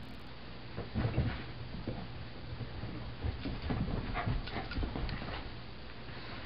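Two miniature Australian Shepherds playing rough: scuffling, thumps and clicks from about a second in, with some short whimpers from a dog.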